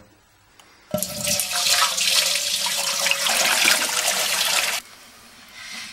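Water pouring in a strong stream into an empty stainless steel tank and splashing on its metal bottom as the tank is filled toward its MAX mark. The flow starts suddenly about a second in and stops abruptly a little before five seconds.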